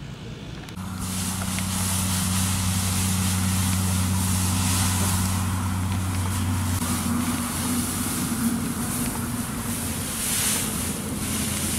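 Small engine running at a steady speed, a low hum whose note shifts slightly about halfway through, under a steady high hiss.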